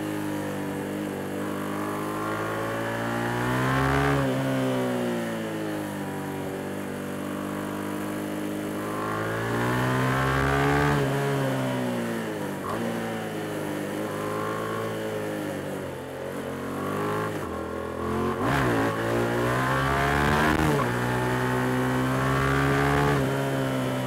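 Yamaha MT-07's 689 cc parallel-twin engine under way, its pitch rising and falling again and again as the throttle is opened and closed. A quick, sharp rev spike comes about three-quarters of the way through.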